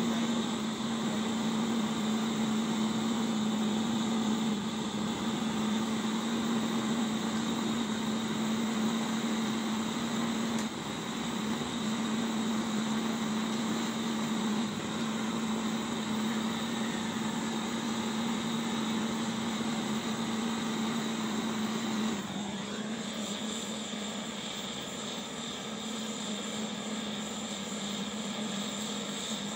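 Copper pressure blowtorch burning: a steady rushing noise with a low hum. About three quarters of the way through the sound drops slightly and changes as the flame is brought onto the bandsaw blade joint to heat it for silver soldering.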